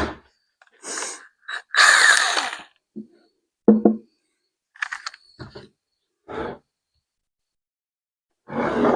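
Scattered handling noises from hands-on work: short rustles and knocks with silence between them, including a longer hiss about two seconds in and a dull knock near the four-second mark.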